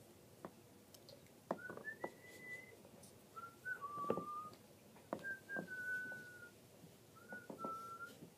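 A person whistling a few short phrases of held notes, some stepping or sliding slightly in pitch, with light knocks in between.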